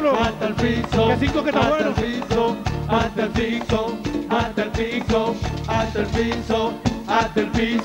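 Live merengue band playing a fast dance number, with driving, evenly spaced percussion, a heavy bass and gliding melodic lines.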